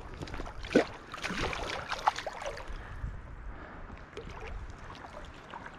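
Shallow creek water splashing and sloshing in irregular bursts over the steady run of the stream, the sharpest splash about a second in.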